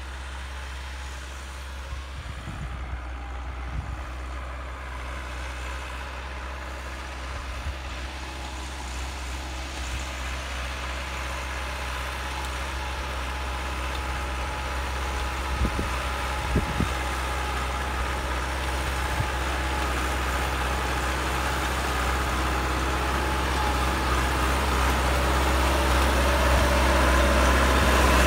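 Massey Ferguson 385 tractor's four-cylinder diesel engine running steadily under load while pulling a cultivator through the soil, growing steadily louder as the tractor draws near. A couple of short knocks sound about halfway through.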